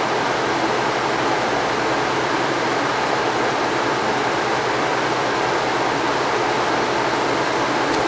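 Haier ESAQ406T window air conditioner's blower fan running steadily in fan-only mode with the compressor off, a constant rush of air through the evaporator coil. The airflow is thawing a coil that frosted up.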